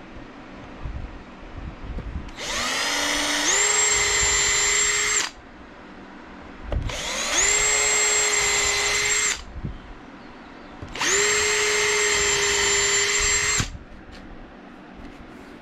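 Bauer cordless drill drilling small pilot holes through a brass hinge's screw holes into plywood, in three separate runs of a couple of seconds each. Each run starts with the whine rising as the motor spins up, then holds a steady pitch until the trigger is released.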